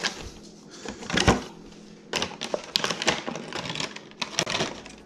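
A fillet knife being worked out of its hard white plastic holder: a string of plastic clicks, rattles and scrapes, busiest in the middle and latter half.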